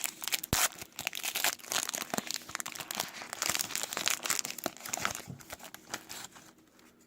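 Foil wrapper of a Topps WWE Raw trading card pack being torn open and crinkled by hand, a dense crackle that dies away about six and a half seconds in.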